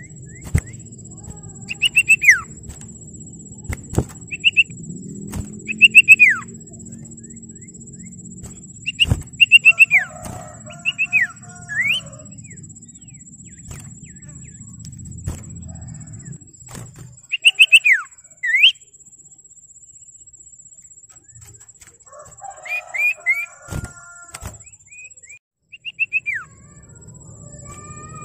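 Common iora (cipoh/sirtu) calling in clusters of short, sharp whistled notes that mostly drop in pitch, with a few rising notes, repeated every second or two with a longer gap about two-thirds of the way through.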